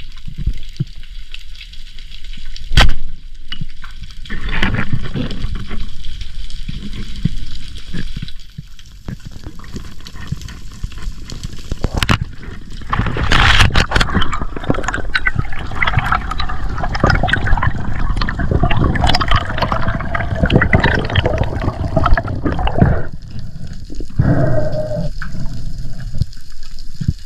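Water bubbling and gurgling around the camera, with a sharp knock about three seconds in and a long, dense stretch of bubbling from about halfway to near the end.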